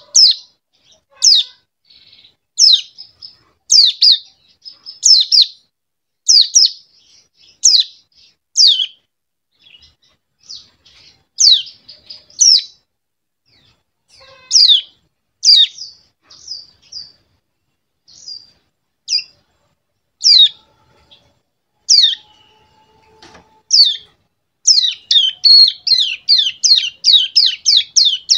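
Young ciblek gunung (brown prinia), about two months old, giving high chirps that sweep downward, spaced about a second apart. Near the end it breaks into a fast run of chirps, about three a second: a juvenile practising the rapid machine-gun-like 'ngebren' burst.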